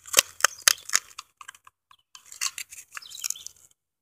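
Handling noise from a Kevlar helmet shell turned in the hands: a few sharp clicks and knocks in the first second, then scraping and rustling as fingers rub along the shell.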